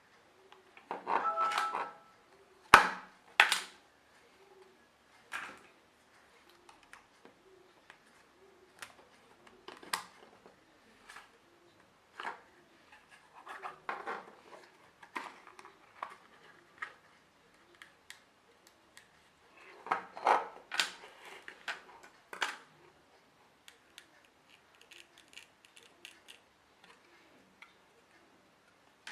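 Metal casing and small parts of a laptop hard drive being handled and pried open by hand: scattered clicks, light metallic clinks and short scrapes, with a sharp click a little under three seconds in and a busier run of scraping and clinking around twenty seconds in.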